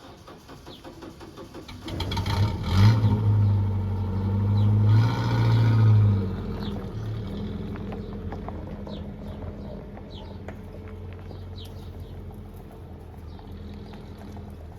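A motor vehicle's engine comes in about two seconds in, hums loudly for about four seconds, then slowly fades as it moves away. Birds chirp throughout.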